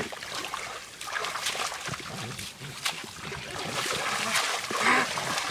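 Hands splashing and squelching in shallow muddy water while groping for fish in the mud, with irregular small splashes and drips.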